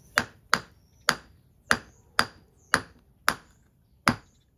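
Steel rock pick striking into a crack in a dolomite boulder, eight sharp taps about two a second, each with a short ring, working the crack open to split the rock.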